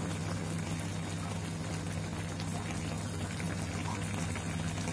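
Yellow turmeric broth bubbling steadily in a wok around tilapia and long beans as the liquid reduces down, with a steady low hum underneath.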